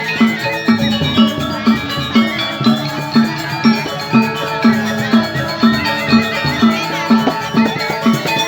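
Balinese gamelan ensemble playing: bronze metallophones ring many overlapping notes over a steady low beat of about two strokes a second.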